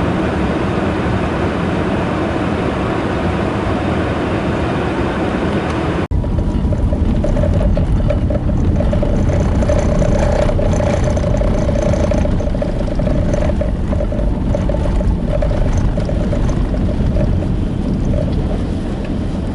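Strong blizzard wind rushing as an even noise. About six seconds in, an abrupt cut to a vehicle driving, with a heavy low rumble and a steady hum.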